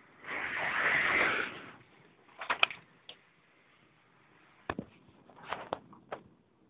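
A gust of blizzard wind hisses for about a second and a half, followed by scattered short knocks and crunches.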